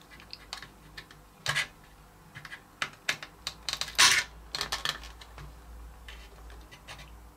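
Irregular small clicks and taps of a soldering iron and a hand tool working against wires, a small circuit board and the plastic case while the wires are desoldered; the sharpest click comes about four seconds in.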